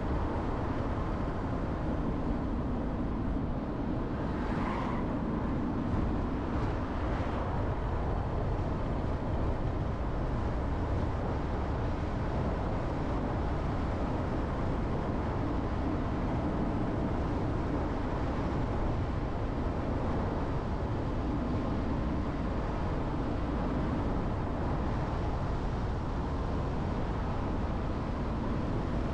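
Jeep Renegade driving at a steady pace: a continuous rumble of engine and tyre noise at an even level, with a faint brief higher sound about five seconds in.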